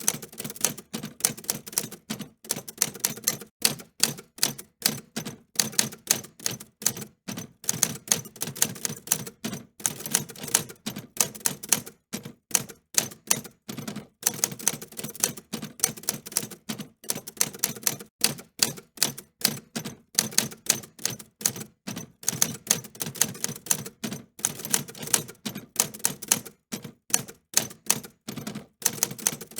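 Mechanical typewriter being typed on: a rapid, irregular run of sharp key clicks and typebar strikes, several a second, with short pauses now and then.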